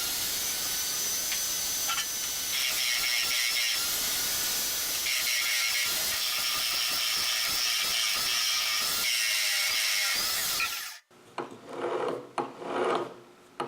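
Homemade prototype wood lathe running, with wood being worked on the spinning piece: a steady hissing run that cuts off abruptly about eleven seconds in. A few knocks of handling follow.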